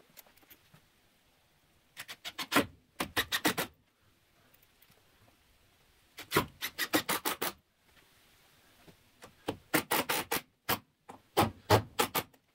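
Makita cordless impact driver hammering in several short bursts, each under two seconds, as it drives 3-inch deck screws through a door's strike plate into the jamb and studs.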